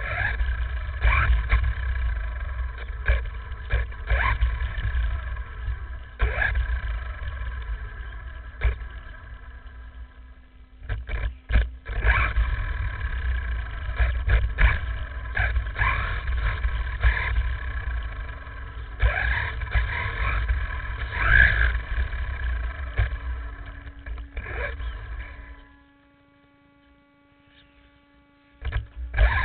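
Heard from a camera mounted on an HPI Bullet Flux ST, a brushless electric RC stadium truck, driving over gravel: heavy rumble of tyres and chassis vibration under a steady electric motor whine that rises with bursts of throttle, with frequent knocks from bumps. It goes quiet for a couple of seconds near the end as the truck stops, then starts again.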